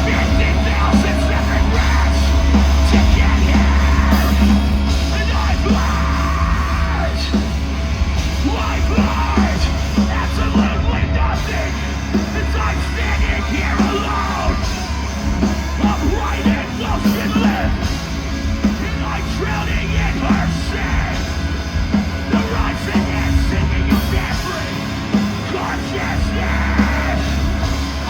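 Live metalcore: screamed vocals over a loud, distorted full band with heavy bass.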